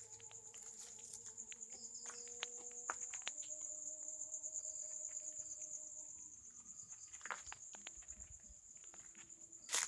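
Crickets trilling steadily at night, a high, fast-pulsing chirr. Scattered faint clicks run underneath, with one louder sharp click near the end.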